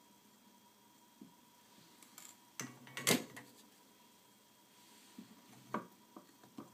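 A few scattered small clicks and taps from tools and parts being handled at a soldering bench, the loudest about three seconds in.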